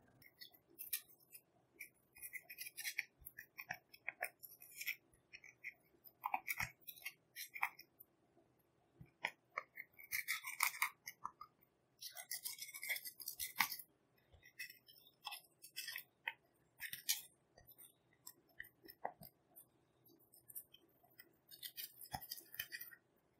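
The point of a scissor blade scraping and crushing pressed eyeshadow powder in a palette's pans: irregular bouts of gritty scratching and crunching, with small clicks where the blade hits the pan, broken by short pauses.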